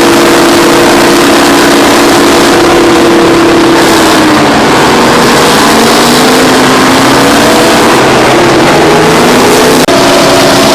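Twin Detroit Diesel 6-71N two-stroke engines of a Terex 82-80 crawler bulldozer working hard while pushing scrapers. The engine note sags about halfway through, then climbs back up, with a momentary break near the end.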